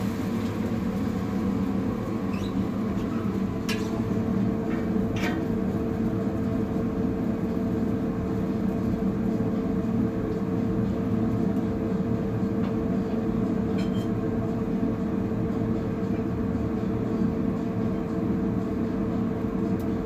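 Steady low drone of cooking equipment with a constant hum, under a pancake frying on a large round griddle, with a few faint clicks.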